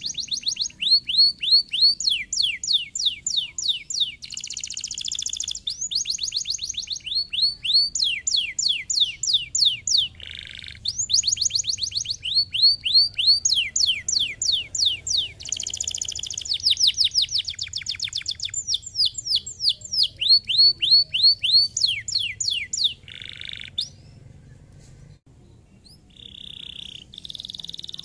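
Domestic canary singing in fast trills of repeated falling notes, broken now and then by short buzzy held notes, with a brief pause near the end.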